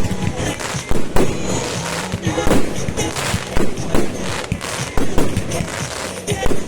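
Fireworks going off in a series of sharp bangs and crackles, with music playing along underneath.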